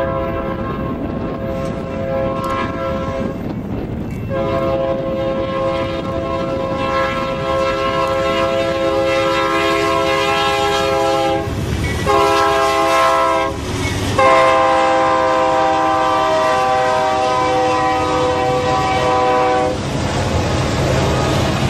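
BNSF freight locomotive's air horn sounding a chord in four blasts, long, long, short, long: the standard grade-crossing signal. The lead diesel locomotives pass after the horn stops near the end.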